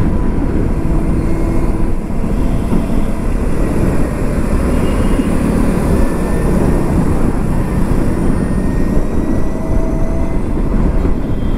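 Steady wind and road noise on the microphone of a moving Ather 450X electric scooter at about 50 to 60 km/h.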